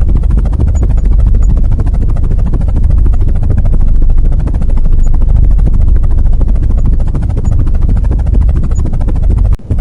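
Cartoon vehicle sound effect: a loud, low engine-like rumble with a fast, even pulsing, which cuts out briefly near the end.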